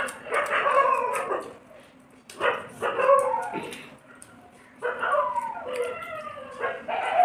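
A dog whining and yelping in a string of four short calls that slide down in pitch.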